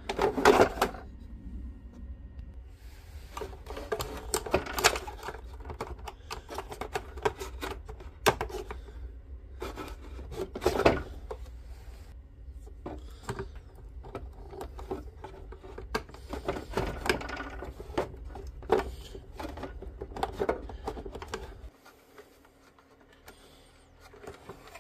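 Hands working on the opened plastic housing of a Milwaukee M18 cordless vacuum, pulling the motor's wire connectors off the circuit board and handling the wires: irregular clicks, taps and rattles of plastic and metal terminals. A low hum sits underneath and stops near the end.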